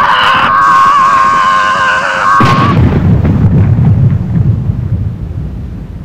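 Voices yelling in one long held cry, cut off about two and a half seconds in by a cannon shot whose low rumble then fades away.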